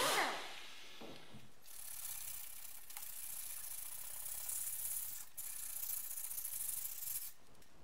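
An air-powered abrasive disc tool spinning down with a falling whine right at the start, then sandpaper rubbed by hand back and forth over bare steel in a steady hiss, with short pauses about three and five seconds in.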